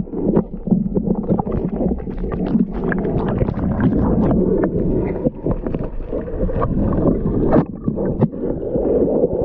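Muffled underwater rushing and gurgling of water around a submerged action camera as the diver swims, with many small clicks and knocks throughout.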